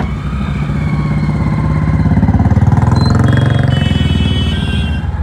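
Motorcycle engine running close by, its firing pulses getting louder toward the middle and then easing off, amid street traffic. A vehicle horn sounds in the second half.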